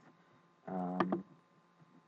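Mostly quiet room tone. About half a second in, a man gives a short 'um'-like murmur, and a single computer-mouse click comes near its end.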